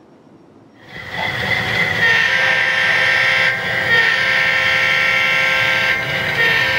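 Diesel locomotive horn sounding in long blasts over a low rumble of engine and wheels, starting about a second in and breaking briefly twice.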